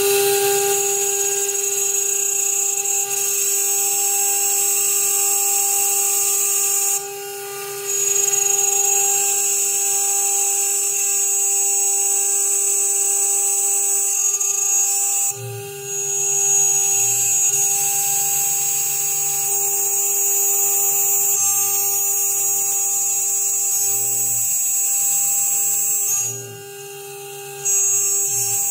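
CNC router spindle at 12,000 RPM driving a 3 mm carbide endmill through polycarbonate: a steady high-pitched whine with the hiss of cutting. The cutting sound drops away for about a second three times, about seven seconds in, about fifteen seconds in and near the end, and a low machine hum comes and goes in the second half.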